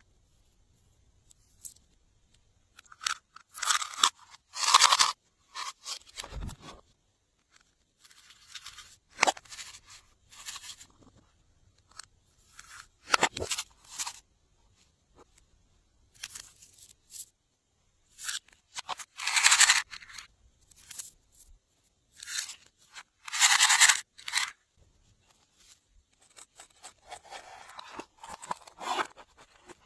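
Glossy slime being worked by hand: repeated short bursts of sticky crackling and squishing as it is pressed, folded and stretched, with short pauses between.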